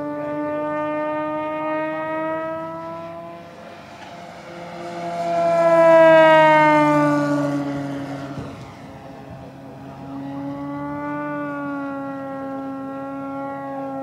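Electric 82-inch AT-6 Texan RC model, its Axi motor on 12 cells spinning a 20-inch propeller, giving a pitched propeller note with many overtones. It swells to a loud pass about six seconds in, the pitch dropping as the plane goes by, fades briefly, and comes back steady near the end.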